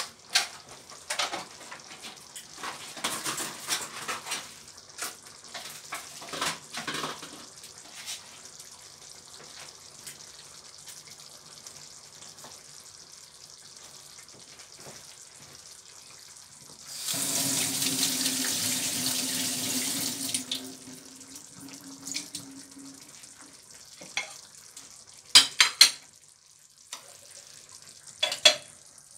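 Water running from a kitchen tap for about three and a half seconds in the middle, a steady rush with a hum under it. Around it come scattered light knocks and clinks of cookware.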